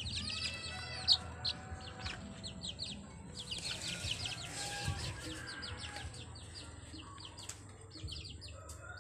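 A brood of baby chicks peeping: high, quick cheeps repeated many times a second and overlapping throughout. There is a brief knock about a second in.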